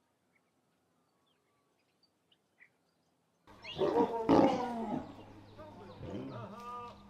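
A lion growling: it sets in suddenly about halfway through as a run of rising and falling growls. The loudest comes about a second after the start.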